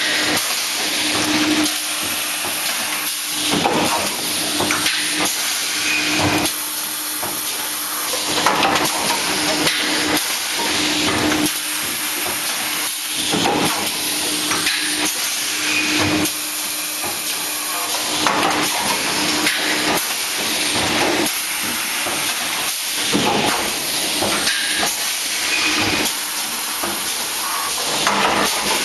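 PP bottle making machine running: a steady hiss of compressed air from its pneumatics, with knocks every two to three seconds as the cylinders and moulds cycle, and a hum that comes and goes.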